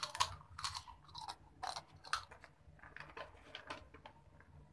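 Someone biting and chewing crunchy food: about five loud crunches in the first two and a half seconds, then fainter chewing.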